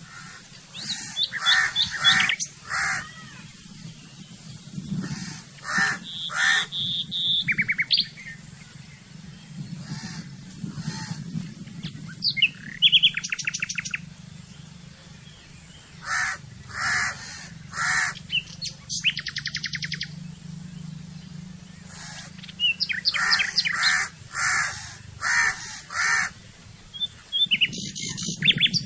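Several birds calling: series of three to five harsh, evenly spaced calls come back every few seconds, mixed with short rapid trills and scattered chirps, over a steady low hum.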